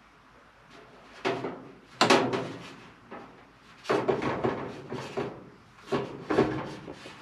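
A series of sudden knocks and clunks, about five of them, some briefly ringing, as gloved hands and a tool work a fitting on a copper water line overhead.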